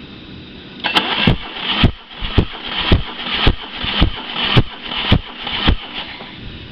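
Starter cranking a Mercruiser 3.7 four-cylinder marine engine for a compression test, starting about a second in and stopping near the end, with a sharp beat about twice a second as the tested cylinder comes up on compression.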